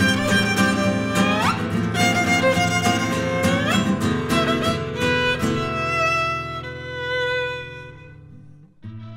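A violin and guitar duo playing a tango. Over the first half the guitar keeps a busy rhythm under the violin, which makes rising slides. The violin then holds long notes as the music thins almost to a pause shortly before the end, and the playing picks up again.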